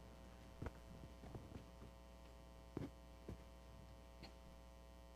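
Near silence: a steady electrical mains hum, with a few faint light knocks and rustles as a cloth is unfolded and folded.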